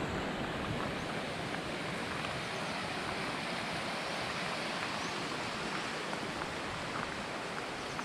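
Mountain stream rushing over rocks, a steady, even noise.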